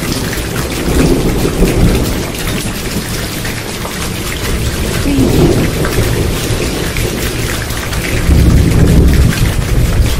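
Heavy rain falling steadily, with thunder rumbling and swelling several times, loudest about eight to nine seconds in.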